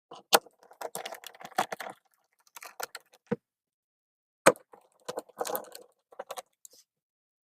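Clicks, taps and light clatter of a door lock being fitted by hand, its parts and a hand screwdriver knocking against the trailer door, with three sharper knocks.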